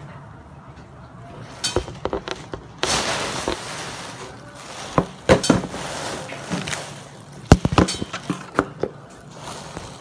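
Metal pots, lids and kitchen utensils clinking and knocking against each other and the stove, in scattered sharp strikes. A short hiss comes about three seconds in.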